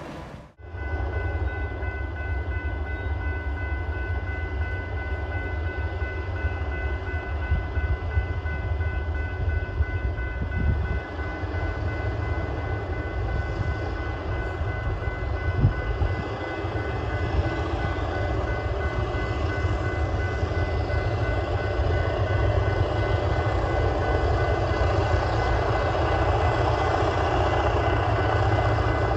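Vintage P-class and T-class diesel-electric locomotives approaching from a distance: a steady low engine rumble that slowly grows louder, with two steady high tones held over it.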